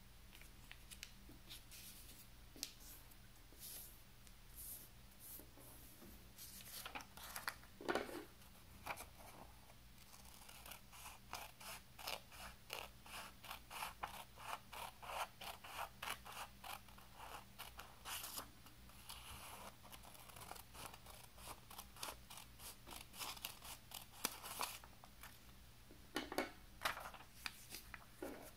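Scissors cutting through a sheet of decorative paper in a long run of quick, even snips, a few a second. Paper rustles as it is folded and handled before the cutting and again near the end.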